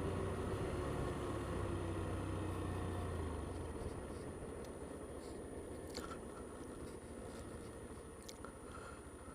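Honda Z125 Monkey's small single-cylinder engine running with road and wind noise as the bike slows, its note falling during the first few seconds and then settling quieter. A few faint clicks in the second half.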